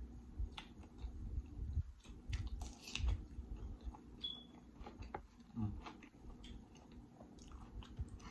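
Close-miked chewing of a mouthful of saucy seafood boil, with wet mouth clicks and smacks and a short hummed "mm" about halfway through.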